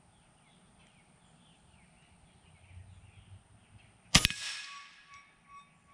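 FX Impact .30-calibre PCP air rifle firing a single shot about four seconds in: one sharp crack, followed by a faint ringing that fades over a second or so as the pellet hits the scrap-metal target. Small birds chirp faintly before the shot.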